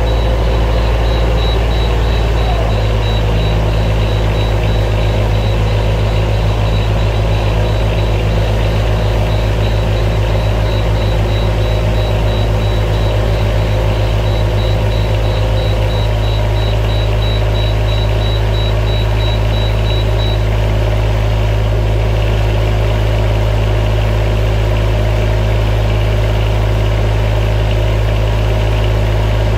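Engine idling steadily, its note shifting slightly a few seconds in. A faint, high, evenly pulsing tone runs alongside until about two-thirds of the way through.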